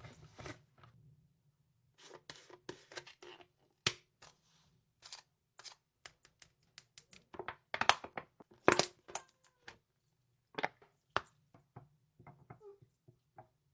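A cat eating and crunching its food: irregular strings of short, clicky crunches, loudest about eight to nine seconds in.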